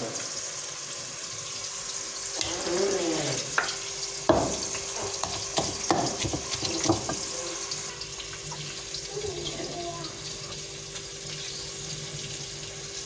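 Kitchen sounds: a steady hiss throughout, with a cluster of clattering knocks of utensils or cookware between about four and seven seconds in.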